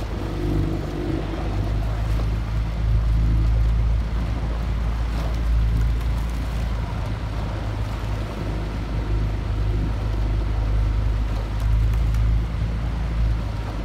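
Outboard motor running steadily at low speed, a constant low hum with water and wind hiss over it.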